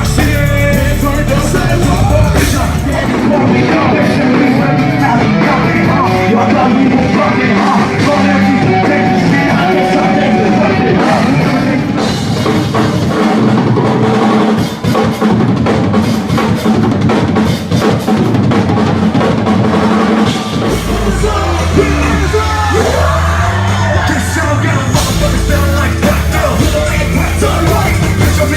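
Live rap-rock concert music: a loud band and beat with drums, and sung and yelled vocals over it. The deep bass drops back for much of the middle and comes back in strongly about two-thirds of the way through.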